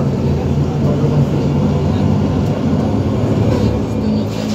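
Inside an Iveco Urbanway 18 articulated natural-gas (CNG) bus under way: steady engine drone with road rumble through the cabin.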